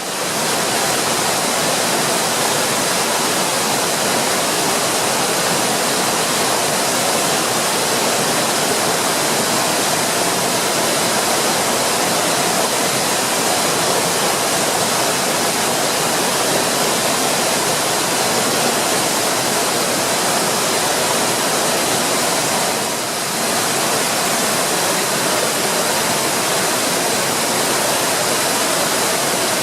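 Amagoi-no-Taki waterfall, water falling and pounding steadily into its pool: a dense, even rush that dips briefly about two-thirds of the way through.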